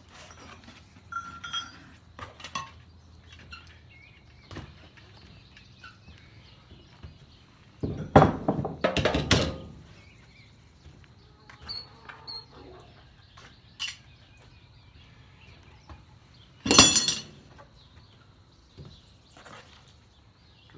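Galvanized steel sawmill parts being handled and set down: scattered light clinks, a loud clattering thunk about eight seconds in, and a sharp metal clank that rings briefly later on.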